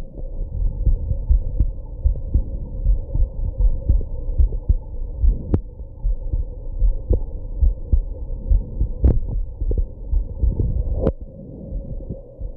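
A human heartbeat, close-recorded: a steady run of low thumps. Three sharp knocks cut through it, one near the middle and two in the last few seconds.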